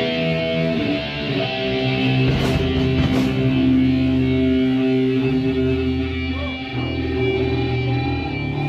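Crust-core band music: electric guitar and bass holding long chords, loud and steady.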